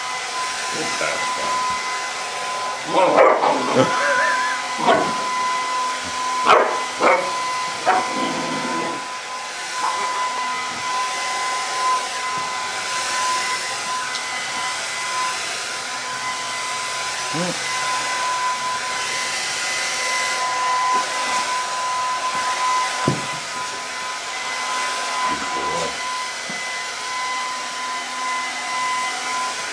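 Hair dryer set to cool running steadily, a constant whine over airy hiss, while a five-month-old Rottweiler puppy barks at it. The barks come in a quick flurry a few seconds in, then only now and then.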